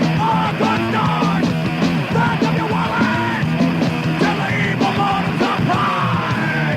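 Thrash metal with a punk edge from a 1993 cassette recording: distorted guitar, bass and drums playing continuously, with shouted vocals.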